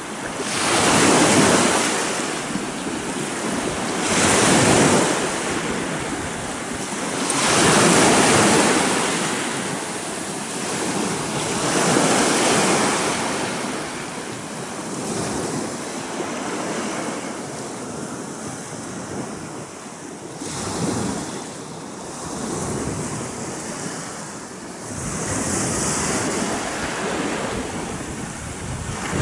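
Small waves breaking and washing up on a sand-and-pebble shore, surging every three to four seconds, the first few loudest, with wind on the microphone.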